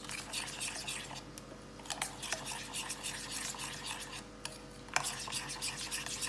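A spoon stirring a thick yogurt and spice marinade in a glass bowl: fast, continuous scraping and clinking against the glass. A few sharper knocks stand out, the loudest about five seconds in, over a faint steady hum.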